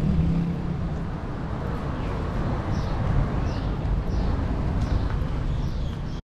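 Roadside traffic noise: a vehicle's engine hum fades out in the first second, leaving a steady rumble and hiss, with a few faint, high, falling chirps through the middle.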